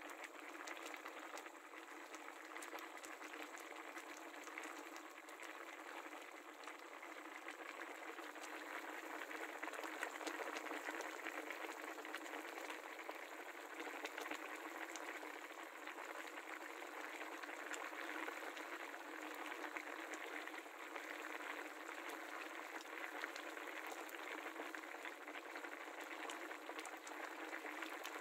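Jungle curry with tilapia simmering at a boil in a cast-iron pan: a steady, dense bubbling with many small pops.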